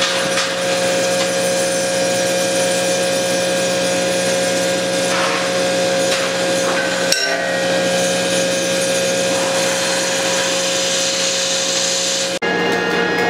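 Construction-site machinery running steadily with a constant hum and a noisy haze, breaking off for an instant about 7 s in and again near the end.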